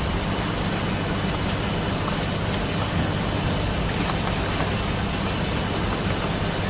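Steady, even rushing noise with a low rumble underneath.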